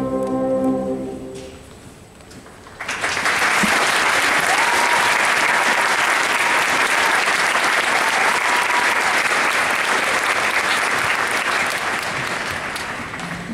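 A concert band's final chord rings out and dies away over the first two seconds. After a short pause, the audience bursts into applause that holds steady and then tapers off near the end.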